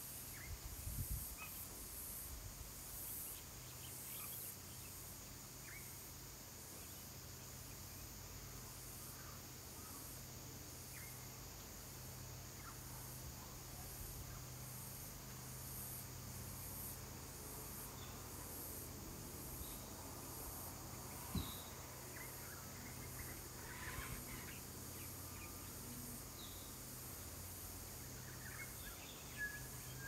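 Insects chirring in a high, evenly pulsing drone, with a few faint, scattered bird chirps and a steady low hum underneath.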